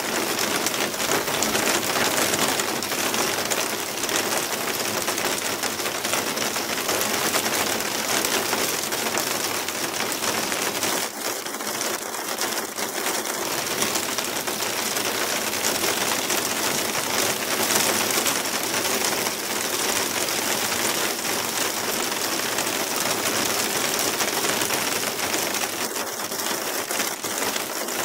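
Hail and heavy rain falling on tiled roofs: a steady, dense clatter of countless small ticks.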